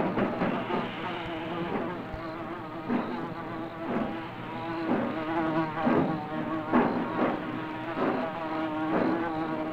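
Insect buzzing, like flies, as a steady wavering drone with a soft pulse about once a second.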